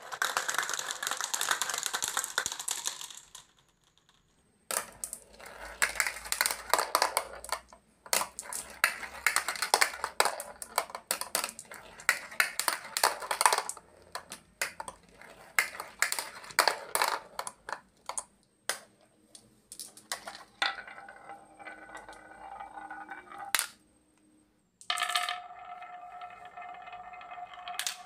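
Glass marbles rolling down a plastic spiral marble-run tower: a fast rattling whir, then clusters of clicks and clatters as batches are dropped in and land in a plastic toy dump truck's bed. Near the end, marbles roll along a wavy groove cut in a wooden block, a steady humming roll with clicks.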